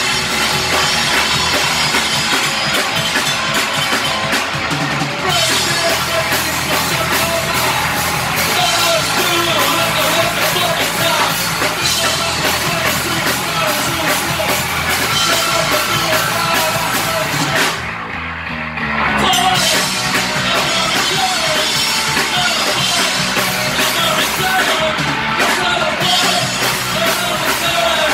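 Punk rock band playing live: distorted electric guitars, bass and drum kit with a voice singing over them. About two-thirds of the way through, the cymbals and high end drop out for about a second before the full band comes back in.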